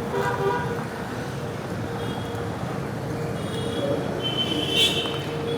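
Street traffic running steadily, with vehicle horns honking briefly near the start and again toward the end.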